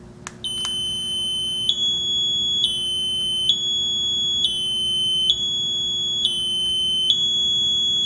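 NE556-driven piezo buzzer backup bell sounding a continuous high-pitched tone that steps back and forth between two close pitches about once a second, switched on by a 315 MHz keyfob remote. A couple of faint clicks come just before it starts.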